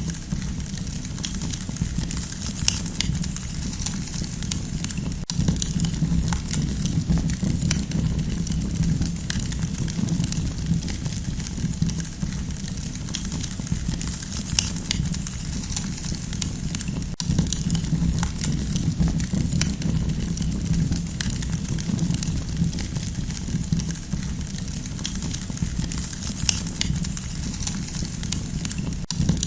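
Campfire crackling: frequent small sharp snaps and pops over a steady low rumble.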